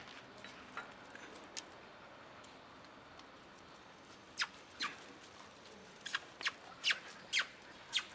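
Young puppies giving a series of short, high squeaks, each dropping quickly in pitch, seven of them in quick succession in the second half, with a few faint ticks before.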